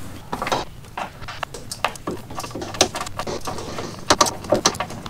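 Ratchet clicking in a run of sharp, unevenly spaced clicks as the 8 mm bolt holding the clutch cable bracket to the frame is backed out.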